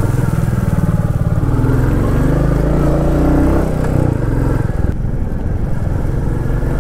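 Motorcycle engine running while riding, heard from on the bike. Its pitch climbs for about a second and a half a couple of seconds in, then drops back.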